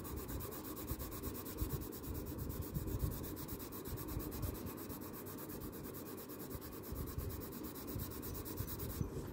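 Derwent Academy colour pencil shading on paper: the pencil lead scratches across the sheet in quick, steady back-and-forth strokes.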